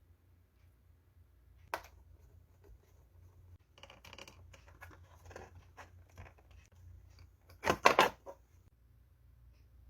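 Hands working on computer parts: a single click, a stretch of scraping and rustling, then a quick cluster of sharp plastic-and-metal clacks about eight seconds in.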